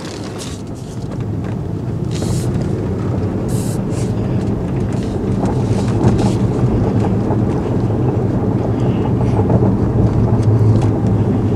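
Tesla Model S driving, heard from inside the cabin: steady tyre and road rumble with no engine note, growing slightly louder as it goes, with a few faint clicks early on. This is a test drive after a front-end rattle repair, listening for whether the rattle is gone.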